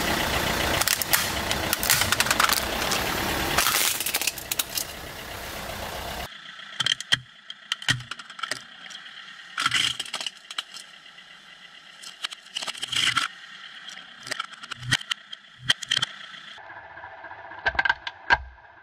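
Car tyre rolling over a plastic toy fire truck on wet asphalt: loud tyre and engine noise with crunching, cracking plastic for about six seconds, cutting off suddenly. After that, a quieter stretch of scattered clicks and ticks.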